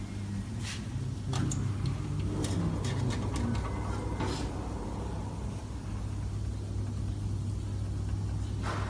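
Steady low machine hum, with scattered clicks and metal taps, mostly in the first half and once near the end, as the rollers of a blister opening machine are handled and adjusted.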